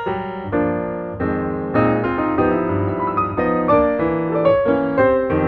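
Background piano music: a melody played over chords, with a chord held for about a second near the middle.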